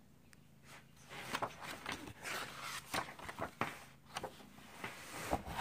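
Hands handling an open picture book: paper rustling with irregular taps and clicks on the pages, starting about a second in.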